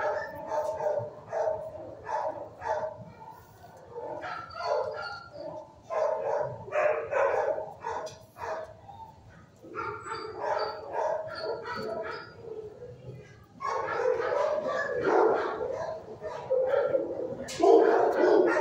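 Many shelter dogs barking at once in a kennel block, a constant overlapping din of barks that grows louder in the last few seconds.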